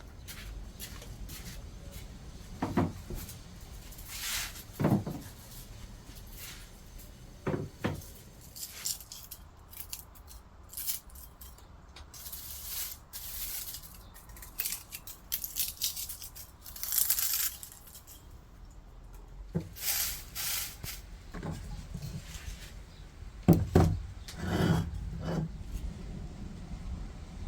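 Intermittent handling sounds: scattered knocks, clicks and short rustles, with the loudest knocks near the end.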